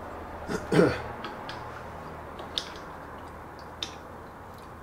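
A few sharp little clicks and taps, spaced a second or so apart, from hand work on the small rubber coolant hoses and their wire spring clips at the top of a motorcycle radiator. There is a short vocal sound from the mechanic about a second in.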